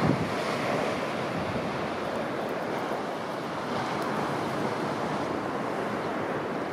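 Steady rushing noise of wind and breaking surf, swelling briefly at the very start.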